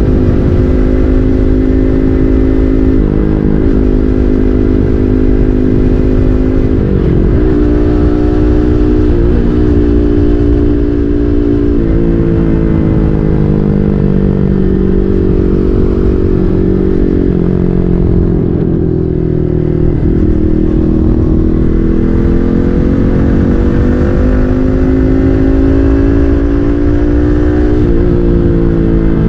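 Yamaha MT-15's single-cylinder engine through an SC Project full-system exhaust, being ridden. The revs rise and fall with throttle and several gear changes, ease off in the middle and build again later.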